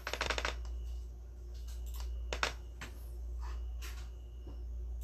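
Light off-camera clicks and taps: a quick run of clicks at the start, then scattered single clicks, the sharpest about two and a half seconds in, over a steady low hum.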